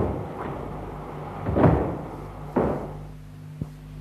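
Steam train at a station: three heavy bangs about a second apart, then a small sharp click, over a steady low hum.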